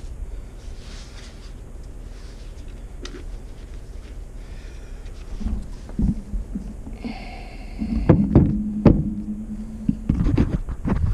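Bumps and knocks of a camera being picked up and handled close to its microphone, over a low steady rumble, with the loudest knocks a little after the middle.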